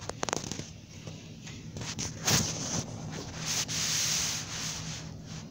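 Handling noise from a phone being moved around: rubbing and scraping against the device, with a few quick clicks near the start, a louder scrape about two seconds in and a longer hissing rub shortly after.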